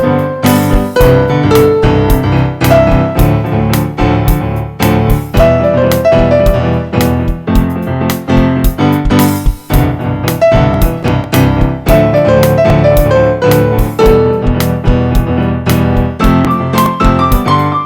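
Background music: an electric piano melody over a steady beat.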